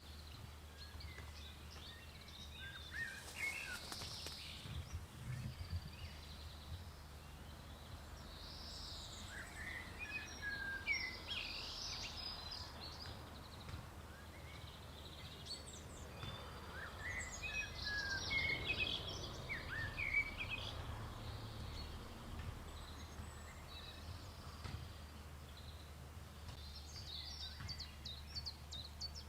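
Small birds chirping and singing in short bursts of calls, several at a time, over a steady low rumble.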